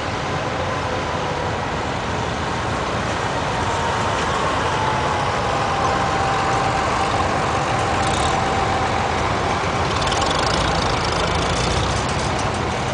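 Vintage farm tractors driving past in a line, their engines running steadily, with a faint whine that falls in pitch about halfway through.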